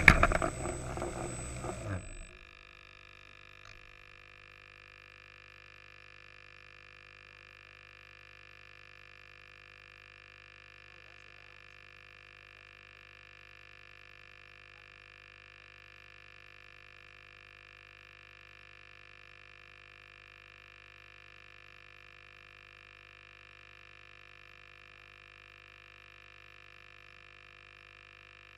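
Quadcopter motors and propellers running, with a sharp knock as the drone comes down, then cutting off about two seconds in. After that only a faint steady hum remains.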